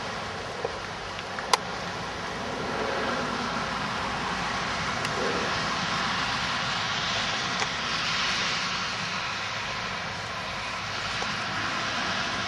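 Steady outdoor rushing noise, swelling and fading slowly, with two sharp clicks in the first couple of seconds, the second one the loudest sound in the stretch.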